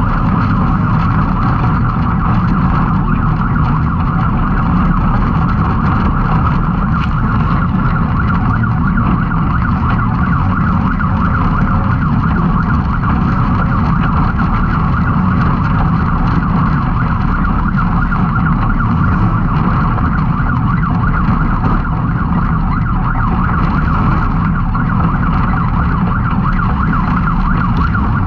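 Can-Am Maverick X3 side-by-side's turbocharged three-cylinder engine running hard and steadily under race load, with a high whine over a low rumble.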